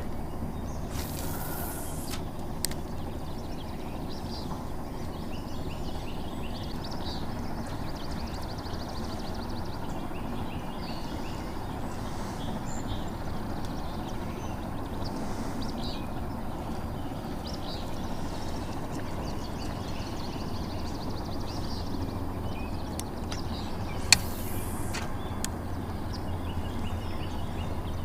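Birds chirping in the background over a steady low outdoor noise, with two brief swishes, one about a second in and one near the end, the second with a sharp click.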